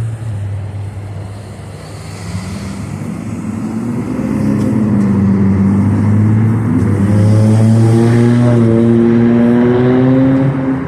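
Motor vehicle engine running close by with a steady low hum. A second engine's pitch rises gradually as it gets louder through the second half, as a vehicle accelerates past.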